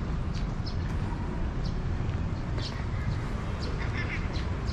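Town street ambience: a steady low rumble with scattered short ticks and a brief high-pitched warbling sound about four seconds in.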